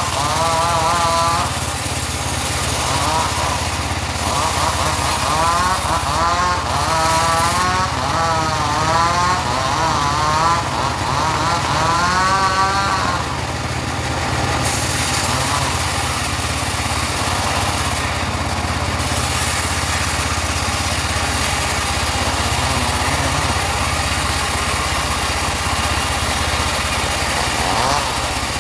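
Engine-driven portable bandsaw sawmill running and cutting teak, a steady engine hum throughout. A wavering whine rises and falls repeatedly over the first half and stops about halfway through.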